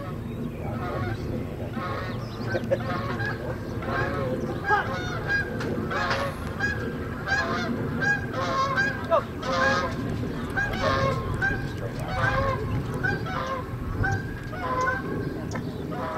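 Geese honking: many short pitched calls, one after another, about two a second, over a low steady rumble.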